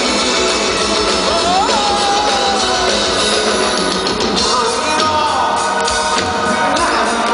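Live power metal band playing, a male singer holding long notes that slide downward over guitars and drums, heard from the audience.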